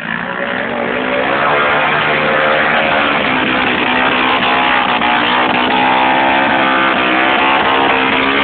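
Dirt bike engine running close by, getting louder in the first second as the bike comes up, its pitch rising and falling with the throttle.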